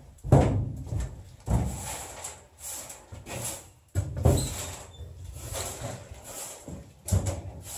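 Footsteps thudding on the bare floor of a gutted school bus, a thump roughly every second.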